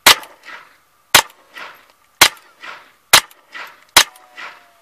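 Five .22 LR rifle shots from a semi-automatic Mossberg 702 Plinkster, fired at a steady pace of about one a second. Each sharp crack is followed about half a second later by a softer echo.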